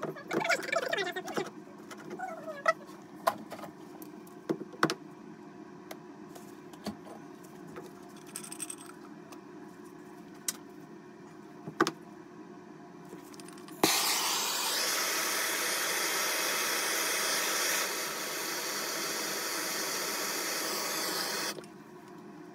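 Brass shower valve body being worked onto the pipe stub by hand: squeaks, scrapes and sharp metal clicks. About 14 seconds in, a loud steady noise starts suddenly, drops a little partway through and cuts off abruptly after about eight seconds.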